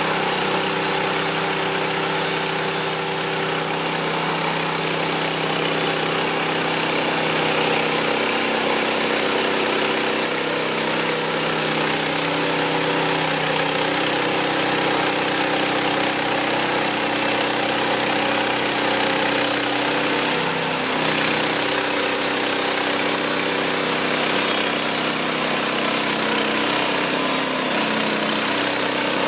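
Sawmill cutting an oak log: the mill's engine runs steadily under load while the blade saws through the oak, with a continuous hiss over the engine note.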